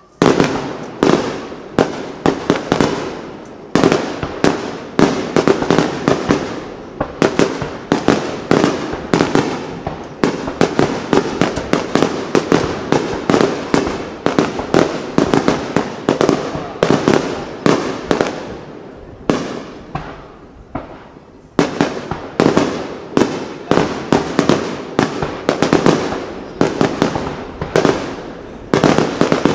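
Aerial firework shells bursting in a rapid, overlapping barrage, several sharp bangs a second, each trailing off in an echo. The barrage eases briefly about two-thirds of the way through, then picks up again with a loud bang.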